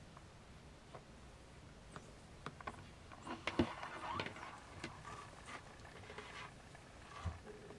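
Siamese kittens shuffling and suckling at their nursing mother: soft rustling and small clicks, busiest in the middle of the stretch.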